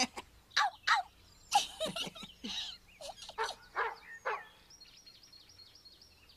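Barking: a string of short woofs that rise and fall in pitch, with two breathy noisy bursts about two seconds in. Near the end, birds chirp in a quick run of high notes.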